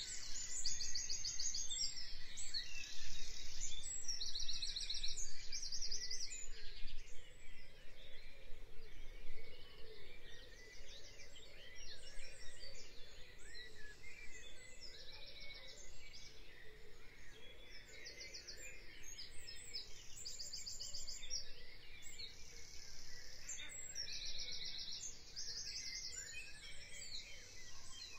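Birds singing and chirping, with repeated short, rapid high trills from several birds, over a steady background hiss.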